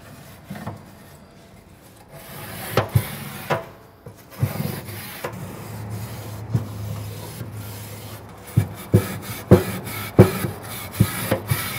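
A small grill brush scrubbing along the grooves of aluminum GrillGrates panels: a rasping rub that starts about two seconds in, with sharp knocks as the brush hits the rails, coming thick and fast in the last few seconds.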